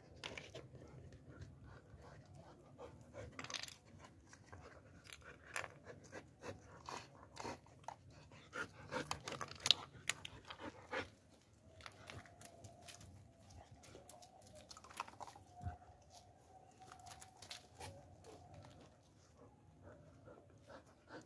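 German shepherd dogs, an adult and puppies, play-fighting close to the microphone: paws scuffing on pebbled concrete and scattered clicks and bumps. The noises are loudest about ten seconds in, when one dog comes right up against the camera.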